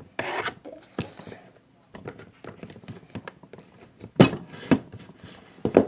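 Plastic slime-container lid being pressed and knocked while someone tries to snap it shut: a run of small clicks and taps, with sharper knocks a little after four seconds and again near the end.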